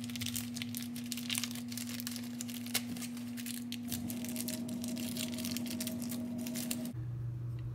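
A plastic parts bag crinkling, with light clicks from handling a thin washer at the wheel hub spindle. A steady low hum runs underneath and drops in pitch near the end.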